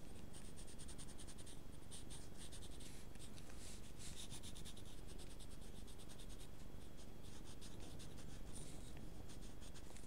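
White charcoal pencil scratching on a painted paper book page in flurries of quick, short strokes with brief pauses between them.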